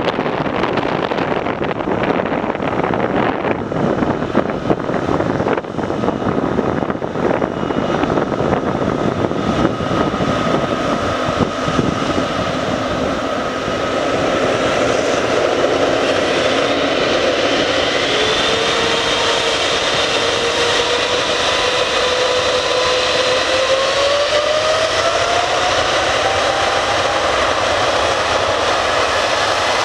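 Boeing 777-200F freighter's twin GE90 turbofan engines at takeoff power on the runway: a loud, steady jet roar that grows louder about halfway through, with whining tones rising in pitch over the second half.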